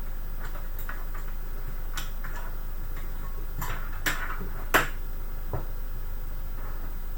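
Scattered light clicks and taps of hands handling parts inside a desktop PC case, with two sharper clicks a little after the middle, over a steady low hum.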